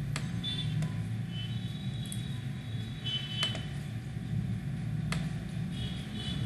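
A few sharp computer mouse clicks, four in all and spread out, over a steady low background rumble, with a few faint high-pitched chirps.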